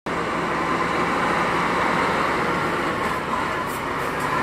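Steady running noise of a vehicle in motion, heard from inside: a low engine hum under a dense, even road hiss.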